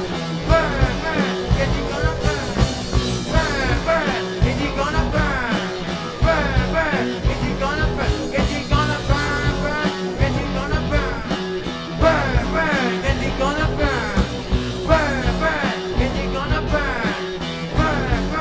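Live rock band playing a driving song: electric guitars, bass guitar and drum kit, with a lead vocal over them.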